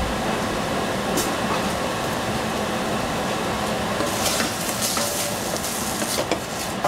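Steady rushing background noise, with a knock at the very start and a run of light clicks and scrapes from about four seconds in.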